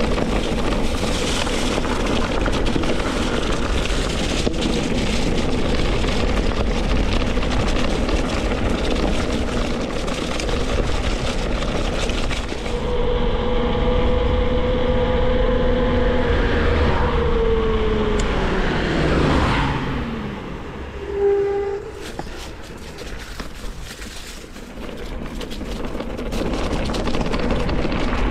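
Mountain-bike riding noise: wind on the microphone and the tyres and bike rattling over the trail. Partway through the rush drops away and a pitched hum holds steady, then slides down in pitch over a few seconds, followed by a short squeal about three-quarters in before the riding noise returns.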